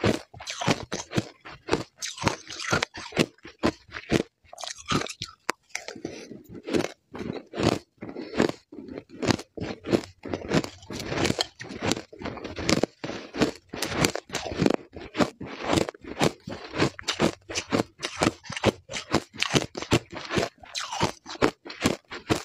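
Shaved ice being crunched and chewed close to the microphone: rapid crisp crunches, several a second, with a short pause about five seconds in. A metal spoon scrapes through the ice in a glass jar now and then.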